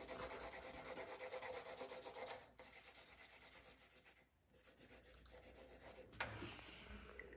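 Felt-tip marker scribbling on paper in fast back-and-forth strokes, colouring in a large area. The strokes are strongest for the first two and a half seconds, then come lighter with a brief pause, and there is a small click about six seconds in.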